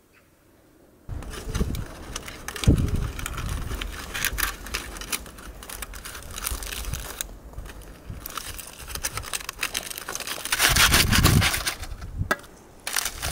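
Aluminium foil crinkling and crackling as it is rolled up tightly around filled flatbread, starting about a second in, with louder crumpling about two-thirds of the way through.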